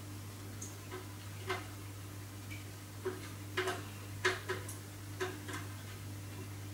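Small Phillips screwdriver working a tiny hinge screw out of a wooden chessboard, making light, irregular metal clicks and ticks. A steady low hum runs underneath.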